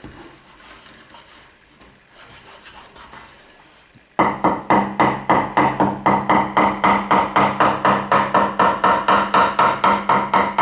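Faint rubbing as fingers press a veneer patch onto a wooden chest top, then, about four seconds in, a small metal-headed hammer tapping the patch quickly and evenly, about four taps a second, each tap ringing briefly.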